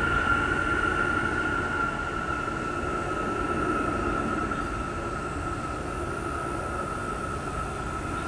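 Military aircraft flying overhead: a steady rumble with a high whine that drifts slowly lower in pitch as the noise gradually fades.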